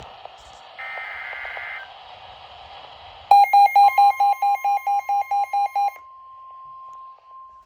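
NOAA Weather Radio SAME data burst, a one-second buzzy warble over radio hiss, then a weather radio's alert alarm beeping rapidly, about four to five beeps a second, for under three seconds. Underneath it the steady single-pitch weather radio warning tone comes in and keeps going, announcing a new warning.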